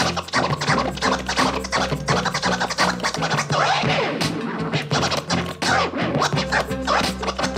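Record scratching on a Numark PT01 Scratch portable turntable: rapid back-and-forth cuts, with the pitch sweeping up and down, over a backing beat with a steady bassline.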